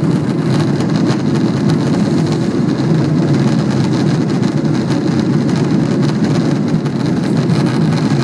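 Steady, loud drone of an aircraft's engine and rushing air heard inside the cockpit, climbing out just after takeoff.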